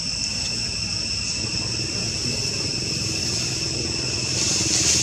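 Steady, high-pitched drone of jungle insects, several tones held without a break, over a low rumble. The insect sound swells louder near the end.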